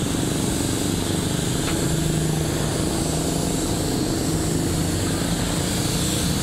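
Air compressor running steadily with a low hum, under the continuous hiss of a compressed-air paint spray gun spraying.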